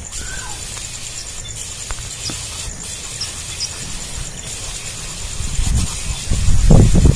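A steady low rumble, growing louder near the end, with a few faint short bird chirps and peeps above it, one a brief falling call just after the start.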